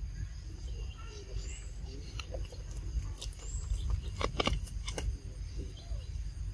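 Faint short squeaks and calls from a group of macaques over a steady low rumble, with a few sharp clicks about four to five seconds in.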